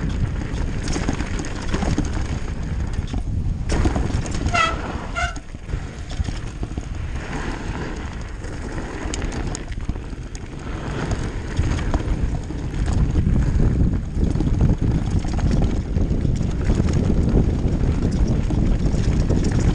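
Mountain bike running fast downhill on a dirt and stony trail: wind rushing over the microphone, tyres on loose ground and the bike rattling over bumps. Two brief squeaks come about four and five seconds in.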